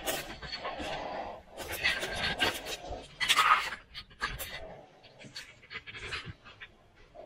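Heavy breathing close to the microphone, with footsteps crunching and crackling over dry leaves and debris.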